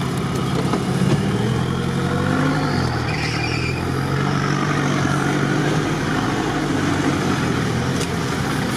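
Off-road 4x4's engine running at low, steady revs while the vehicle creeps through mud.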